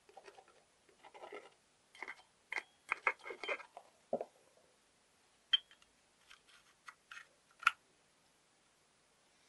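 Scattered light clicks, taps and scrapes of an old steel gate lock and its parts being handled while being oiled, with a few sharper clicks near the middle and later on.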